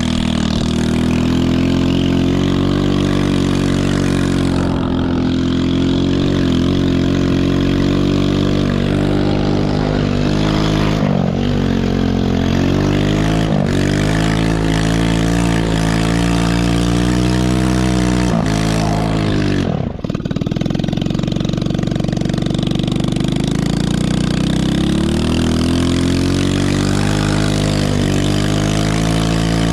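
Small single-cylinder four-stroke engine of a Chinese 110cc ATV running hard, its revs rising and falling repeatedly through slides. The revs drop sharply about twenty seconds in, then pick up again.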